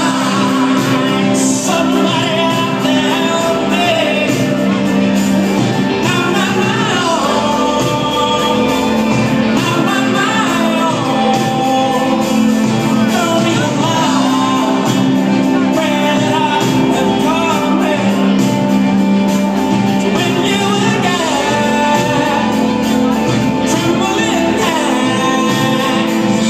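Live rock band playing, with a lead singer's vocals over guitars, bass and drums, heard loud and steady from within the crowd.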